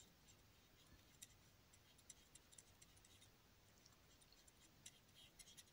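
Near silence with faint, irregular light ticks of a paintbrush dabbing acrylic paint onto canvas.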